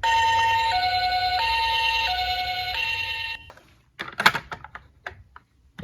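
A toy ambulance's two-tone hi-lo siren, switching back and forth between a high note and a lower note about every 0.7 s. It cuts off suddenly about three and a half seconds in and is followed by a few light clicks.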